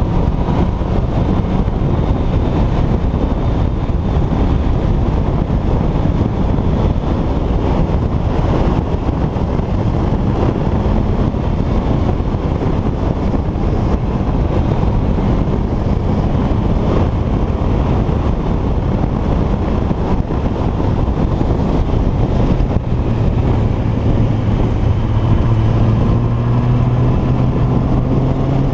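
A vehicle engine running under heavy wind and rumble on the microphone, its tone rising in pitch near the end.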